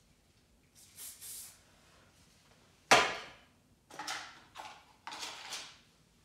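Tools being rummaged in a hairdressing trolley. A brief rustle comes first, then a sharp knock near three seconds in, the loudest sound, followed by rattling and scraping as items are moved about.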